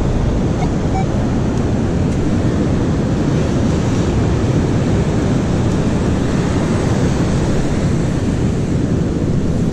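Ocean surf washing in, mixed with steady wind noise buffeting the microphone.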